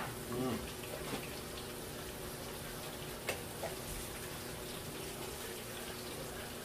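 Steady sizzling and bubbling of fish and french fries frying in hot oil, with a faint click of metal tongs about three seconds in.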